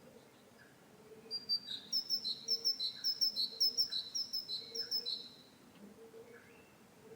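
Great tit singing: a clear, high two-note phrase repeated about eight times over some four seconds, starting a little over a second in.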